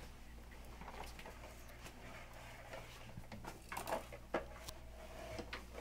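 Light taps and knocks from a toddler's plastic push-walker toy rolling and bumping across a hard kitchen floor, with a short cluster of louder knocks about four seconds in, over a faint low hum.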